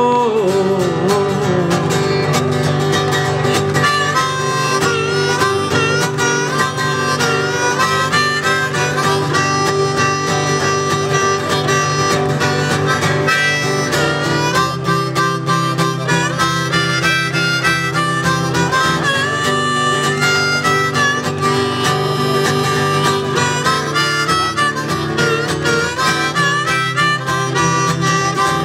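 Instrumental break in a live acoustic country song: a harmonica plays the melody in held and bending notes over a strummed acoustic guitar.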